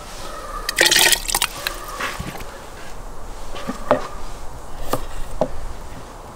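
Cut potato pieces dropped into a metal pot of water, splashing loudly about a second in. A few short knife knocks on a wooden cutting board follow as a carrot is cut.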